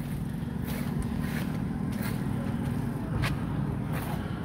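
Steady low hum of road traffic and vehicle engines, with footsteps on a concrete sidewalk at a walking pace, about one every two-thirds of a second.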